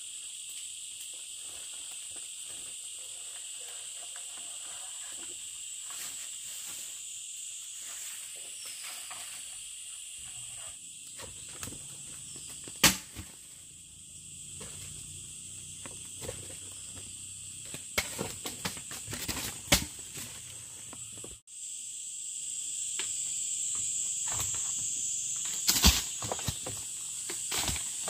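A steady, high insect chorus of crickets or cicadas, carrying on without a pause except for a brief break about three quarters of the way in. Scattered sharp clicks and knocks come through it, the loudest about halfway and near the end.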